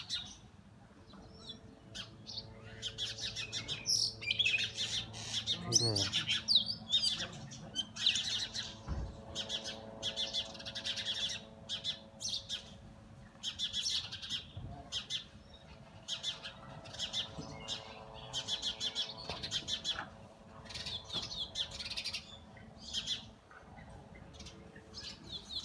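Oriental magpie-robin calling: clusters of high, sharp chirps repeated about once a second.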